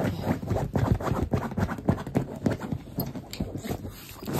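A beagle squirming and rubbing itself against a couch blanket: a fast, irregular run of soft thumps and rustles.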